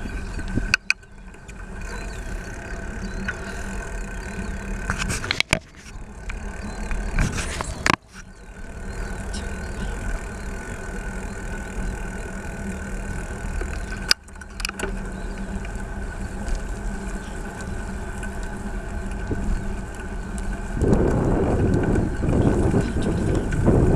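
Motor traffic on a busy road, with a steady engine hum running throughout. It is cut by a few short sharp breaks with clicks, and near the end a louder rush of wind on the microphone sets in.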